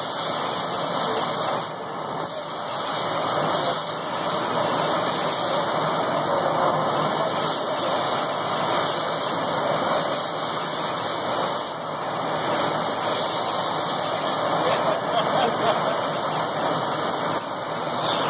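Mitsubishi ML3015EX Plus CO2 laser cutter running while it cuts 1 mm cold-rolled steel sheet: a steady hiss with short dips about two seconds in and again near twelve seconds.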